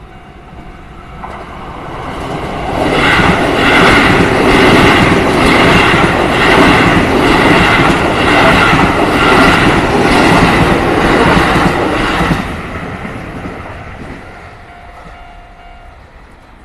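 Keio Line electric train passing through a level crossing. It builds up, is loud for about nine seconds with a regular clatter of wheels over rail joints, and then fades away.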